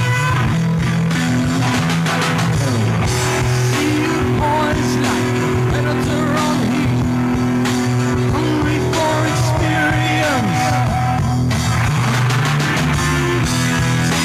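Rock band playing live: electric guitar and drum kit, with a singer's voice over them from a few seconds in.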